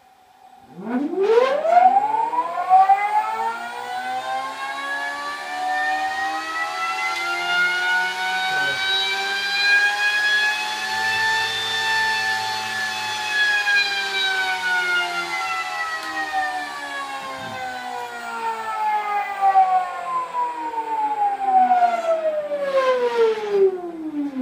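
High-power PMAC electric motor on a test bench, fed by its inverter, whining as it is throttled up: the pitch climbs quickly about a second in, keeps rising slowly to a peak near the middle, then falls as the motor slows near the end. The whine is louder than the motor itself because the test rig's frame resonates like a guitar body.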